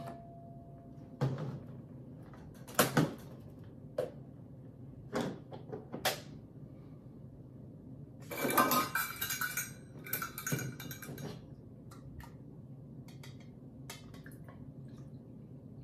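Kitchen containers and utensils knocking and clinking as they are handled, with a busier stretch of clatter about halfway through.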